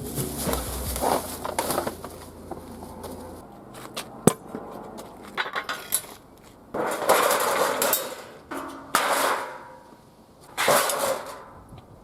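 Dismantled washing-machine parts clattering and clinking as they are handled, in three loud bursts of about a second each in the second half, with a sharp click a little after four seconds in.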